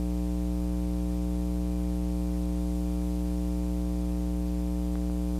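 Steady electrical mains hum and buzz on the recording's audio, a constant stack of low tones that never changes. A faint tick comes near the end.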